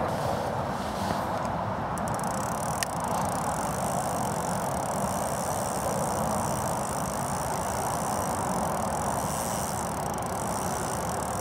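Steady rushing of flowing river water, with one sharp click about three seconds in.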